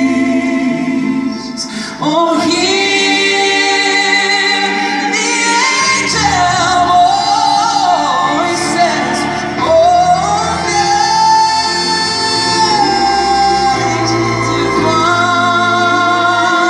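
Live orchestra accompanying a female singer holding long notes with vibrato, the voice sitting over strings and piano.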